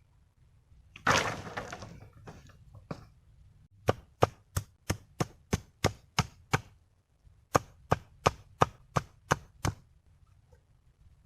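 Wood being chopped with a blade in two runs of sharp, even strikes, about three a second, after a short noisy crash about a second in.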